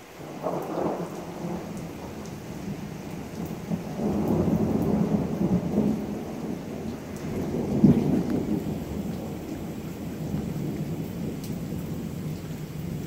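Thunder rumbling in several swells, the loudest about eight seconds in, over steady rain.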